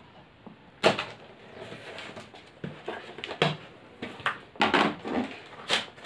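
A cardboard shipping box being opened by hand: packing tape slit with a knife and ripped off, with cardboard flaps and packaging crackling and rustling in irregular bursts. The loudest sound is a sharp crack about a second in.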